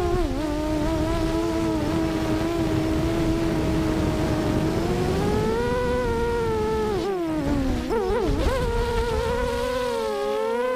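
Lumenier QAV250 quadcopter's 2206 2000kv brushless motors and 5x4.5-inch propellers whining steadily, with a rush of air noise underneath. The pitch rises a little around halfway. Then it drops sharply and wavers up and down about seven to eight and a half seconds in as the throttle is chopped and punched, and climbs back.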